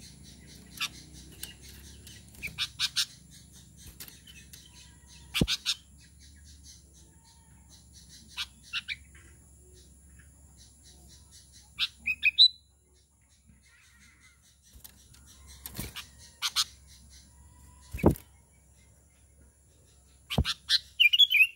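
Sooty-headed bulbul (kutilang) giving short bursts of bright chirps every few seconds, with a few sharp knocks as the caged bird hops about.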